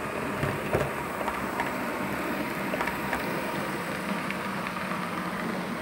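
OO gauge model train running along the layout track: a steady rumble of motor and wheels on rail, with scattered light clicks.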